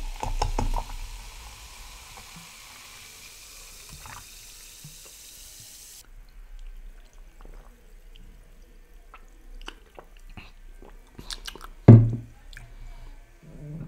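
Pepsi poured from a plastic bottle into a glass mug, then fizzing with a steady hiss for about six seconds. After that come small sipping and swallowing sounds, and a sudden loud thump about twelve seconds in.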